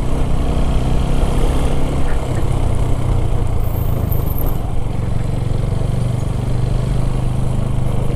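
Motorcycle engine running steadily at low speed, heard from the rider's seat as the bike slows gently.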